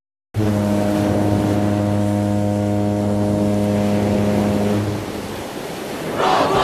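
A foghorn sounding one long, steady low blast over a steady rush like surf, stopping about five seconds in. Near the end a group of voices breaks into loud shouting.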